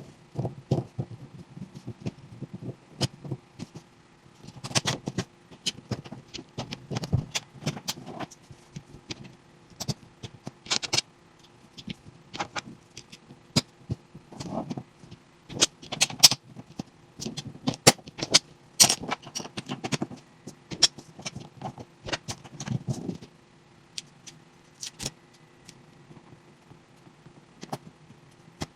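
Toy packaging and small plastic toy pieces being handled and unboxed: a busy run of clicks, taps and rattles that thins out to a few isolated clicks about 23 seconds in.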